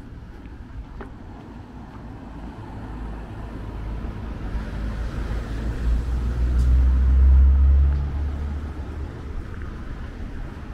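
A motor vehicle passing on the road: its low engine rumble grows louder over several seconds, is loudest about seven seconds in, then fades away.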